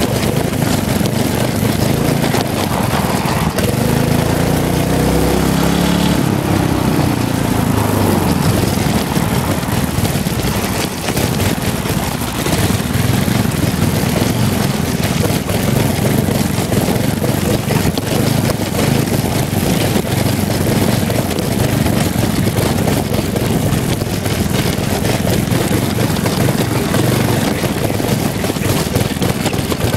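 Tecumseh HM100 10 HP single-cylinder four-stroke go-kart engine running through a homemade pipe and muffler exhaust while the kart is driven. A few seconds in the revs climb, then drop back, and the engine runs on steadily after that.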